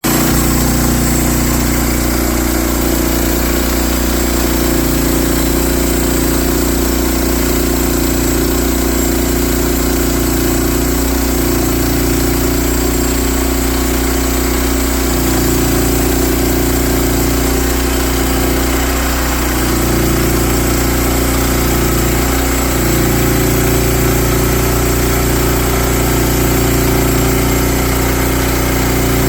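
Gasoline engine of a Woodland Mills portable bandsaw sawmill running steadily, with small shifts in its note a few times.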